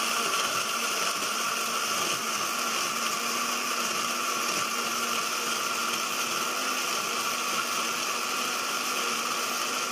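Countertop jug blender running steadily at high speed, its motor whining as the blades grind soaked almonds and water into almond milk.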